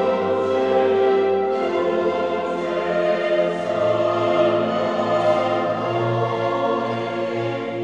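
A choir singing with a string orchestra in long held chords.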